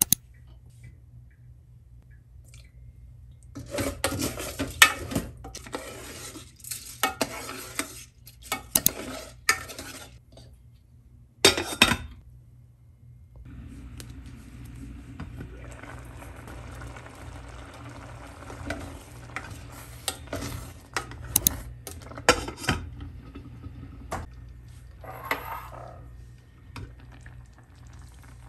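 Cooking-pot and utensil sounds: clattering and scraping against a metal pot, with stirring, a sharp knock about twelve seconds in, and a stretch of steady rustling noise after it, over a steady low hum.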